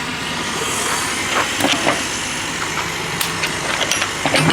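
Semi-truck engine idling steadily, with scattered clicks and knocks over it, several close together near the end.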